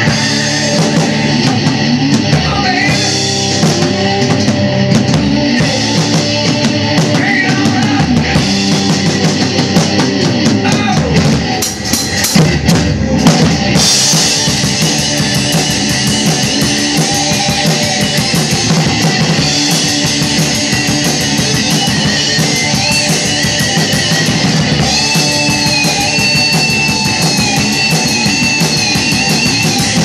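Rock drum kit played live along to a hard rock recording with electric guitar. About twelve seconds in there is a brief dip followed by a dense run of hits.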